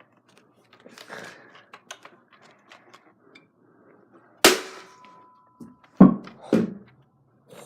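A Nerf Rival blaster firing with one sharp crack about four and a half seconds in, followed by a short ringing tone, then two dull thumps about a second and a half later. Small clicks of handling come before the shot.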